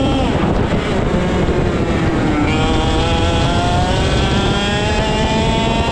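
IAME X30 125cc two-stroke kart engine coming off full throttle right at the start, its pitch dropping sharply as the driver lifts for a corner. About two and a half seconds in it comes back on the throttle and the pitch climbs steadily as the kart accelerates out of the corner.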